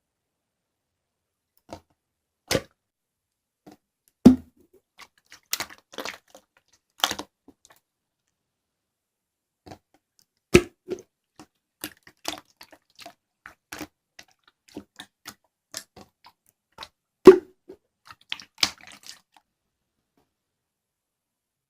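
Slime being squeezed and played with by hand, giving irregular sticky clicks and pops, a few of them loud. They stop about nineteen seconds in.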